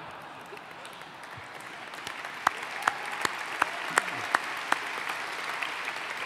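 Audience applauding, building over the first couple of seconds. From about two and a half seconds in, single louder claps stand out above it, from a man at the podium clapping close to the microphone.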